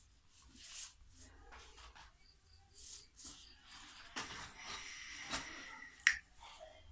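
Short breathy puffs of air pushed from the throat, blowing vapor O-rings by the cough method. A longer airy hiss of drawn breath comes about four seconds in, and a sharp click follows just after six seconds.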